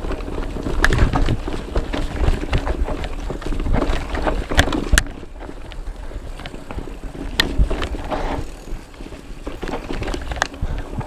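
Mountain bike descending a dirt trail: rumble of tyres over the ground and rattle of the bike, with several sharp knocks from bumps and wind on the microphone.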